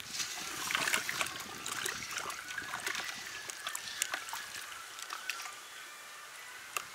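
Water sloshing and splashing in an aluminium pot as a hand stirs whole snakehead fish in salted water to wash off their slime. The splashing is busiest in the first few seconds and eases off toward the end.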